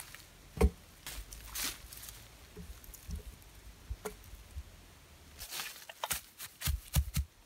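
Aspen logs knocking together as they are handled and stacked, with one heavy wooden thud about two thirds of a second in and a run of knocks near the end, over footsteps and rustling in dry leaves.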